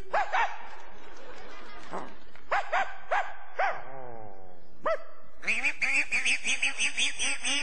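Dog yelps and barks voiced for a hand-shadow dog: a few separate high yelps, a long whining call about four seconds in, then a quick run of barks near the end.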